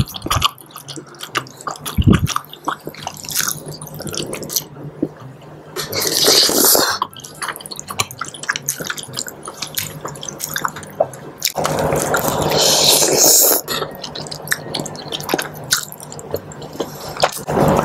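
Close-miked wet eating sounds of two people eating soupy seblak noodles: chewing, small mouth clicks, and slurps of the noodles, with two longer, louder slurping stretches, one about six seconds in and another about twelve seconds in.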